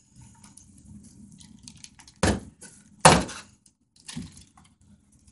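Small parts and packaging of a bike headset being handled: three sharp knocks or clatters, the loudest about three seconds in, over faint rustling.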